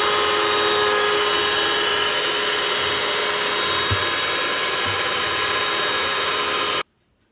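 Electric hand mixer running at speed in a bowl, its motor whining steadily as it beats eggs and sugar into a thick, white, snow-like foam for a génoise sponge. It stops abruptly near the end.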